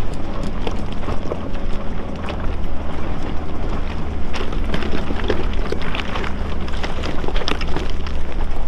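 A lifted Nissan Pathfinder R50 crawling over rocks. The engine runs steadily under a constant stream of irregular clicks and knocks from tyres and suspension working over the rock.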